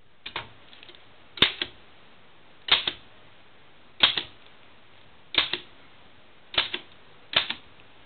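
Oliver No. 9 typewriter keys struck one at a time: seven sharp clacks about a second apart, each followed by a quick second tap.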